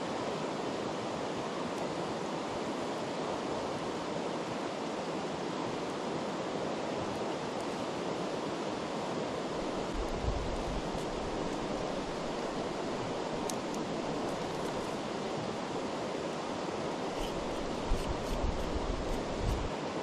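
Steady rush of a mountain river flowing over stones. A few light clicks and brief low rumbles come through, mostly in the last few seconds.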